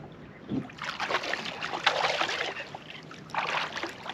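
Water splashing against a kayak as a hooked bass thrashes at the surface while it is brought in: a long stretch of splashing, then a shorter burst near the end.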